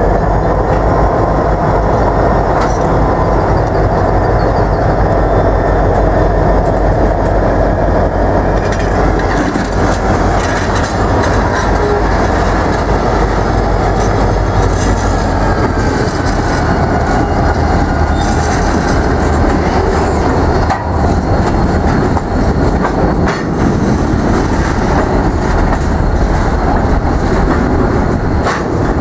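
Diesel freight train passing close by: locomotives, including an EMD SD38-2 and SD40-2, go by with a steady heavy rumble, followed by loaded covered hopper cars rolling past. Sharp metallic clicks and clanks from the wheels and cars come in from about nine seconds on.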